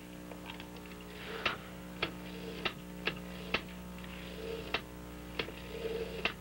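Desk telephone being dialled: a series of sharp clicks, roughly one every half second and unevenly spaced, over a steady low hum.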